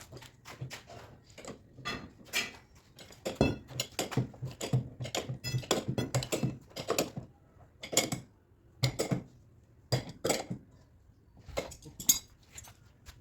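Metal tools clinking and knocking, an irregular run of sharp taps that is busiest in the middle stretch.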